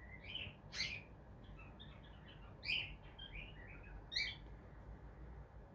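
Cockatiel chirping: a run of short soft chirps and chatter broken by three louder, sharper calls, falling quiet after about four and a half seconds.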